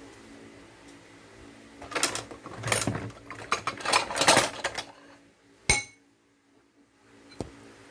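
A few seconds of scraping and handling noise, then a metal spoon strikes the ceramic bowl once with a short ringing clink.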